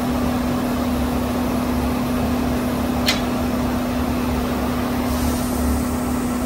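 Steady hum and rushing noise from plating-shop machinery over an agitated nickel plating tank, with one light sharp click about three seconds in.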